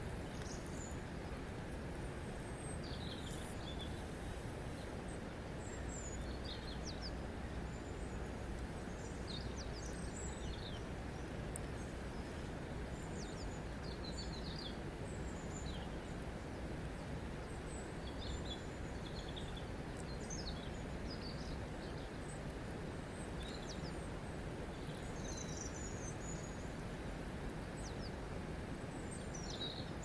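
River water flowing past a stony bank, a steady soft rush, with small birds chirping on and off throughout.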